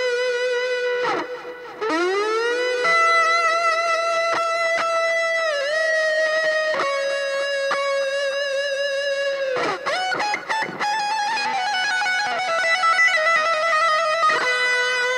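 Music: an electric guitar playing long held notes, with deep pitch dives and swoops about a second in and again around ten seconds in.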